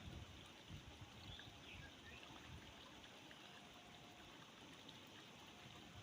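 Near silence: faint outdoor background hiss with a low rumble and a few faint brief tones.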